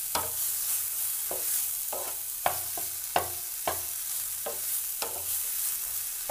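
Wooden spatula stirring soya chunks in a non-stick frying pan, knocking and scraping against the pan about twice a second over a steady sizzle of frying oil. Two knocks near the middle are the loudest.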